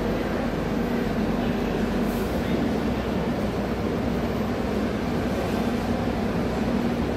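Steady hum and low rumble of a stationary passenger train idling at a station platform, with the general noise of the platform around it.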